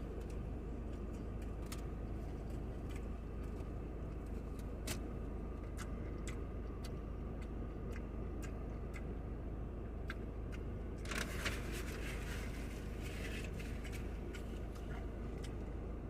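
Eating sounds: faint chewing clicks and a short rustle about eleven seconds in, over a steady low rumble.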